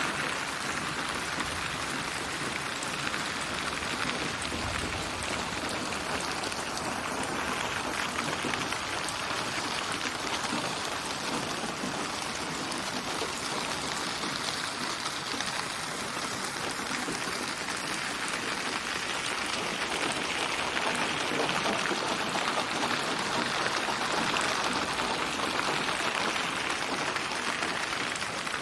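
Steady, dense rain: raindrops pattering on surfaces, a virtual rain ambience built from many recorded rain samples and spatialised in 8D surround, its intensity and focus drifting slowly.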